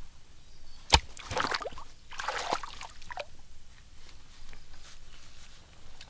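A large knife blade chops into shallow muddy water with one sharp slap about a second in. Splashing and sloshing follow in clusters for about two seconds as the water is churned, then only light sloshing remains.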